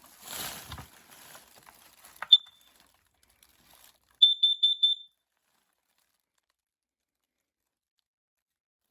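Kidde carbon monoxide detector sounding on its test button. A rustle and click bring one short high-pitched chirp, then, about four seconds in, a group of four quick high-pitched beeps, the pattern of a CO alarm.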